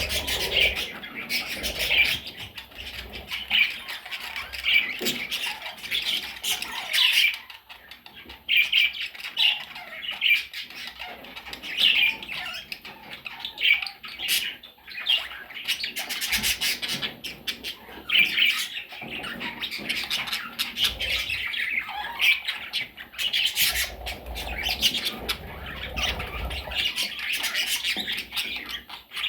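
Budgerigar chicks squawking and chirping almost without pause, a dense run of short, scratchy calls with sharp clicks among them.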